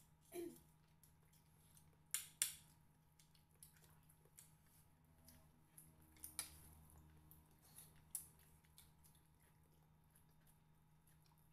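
Quiet eating sounds from a meal eaten by hand: a handful of sharp clicks and taps, two close together about two seconds in, over a faint steady hum.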